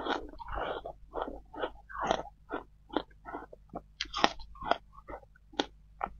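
Close-miked crunching and chewing of balls of shaved ice topped with passion fruit pulp, a steady run of crisp crunches at about two to three a second.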